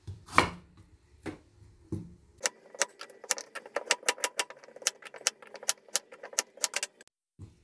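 A chef's knife chopping carrots on a wooden cutting board: a few separate knocks, then a quick run of sharp clicks as the blade cuts through and strikes the board.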